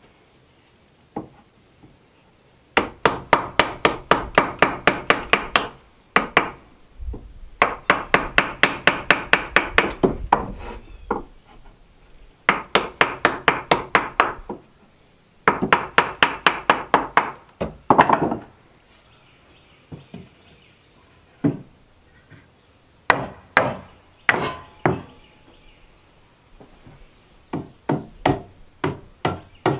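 Hammer tapping a wood chisel into a pine block, in long runs of quick, even taps of about six a second. Near the end come separate blows, then a steady run of about three a second, as a claw hammer drives the wooden block into place on the sawmill bunk.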